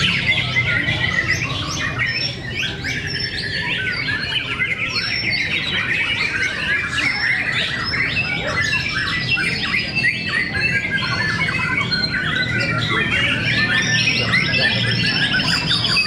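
Many caged white-rumped shamas (murai batu) singing at once, a dense, overlapping tangle of rapid whistles, trills and chattering calls, with a long high whistle near the end. A steady low hum runs underneath.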